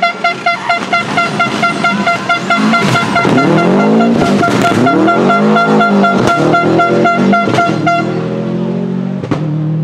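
A horn blowing in quick blasts, about three a second, over a Subaru Impreza rally car's turbocharged flat-four engine revving up and down through a hairpin, with a few sharp bangs from the car along the way. The horn blasts stop about eight seconds in.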